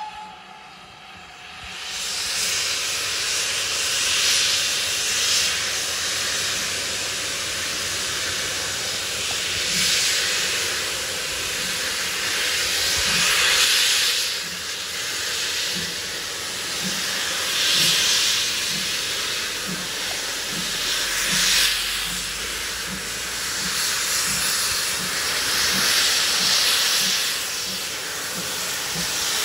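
Steam hissing from the open cylinder drain cocks of GWR Manor-class 4-6-0 locomotive No. 7822 as it moves slowly forward. The hiss comes up about two seconds in and swells and fades every few seconds, over a faint, slow, regular beat.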